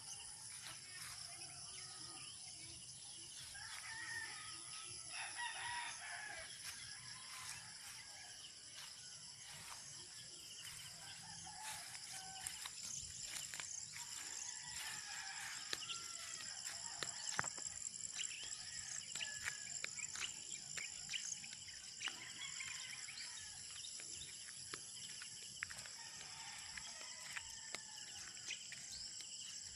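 Roosters crowing a few times over a steady high-pitched drone of insects, with scattered bird chirps.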